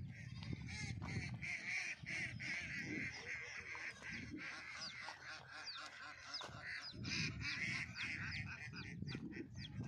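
A flock of free-range poultry calling, with many short overlapping calls and high chirps. Low thuds of footsteps on a dirt path sound underneath.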